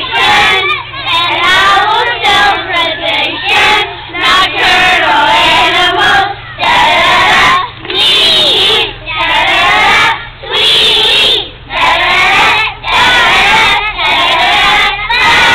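A group of young children singing together in unison, in short phrases with brief breaks between them.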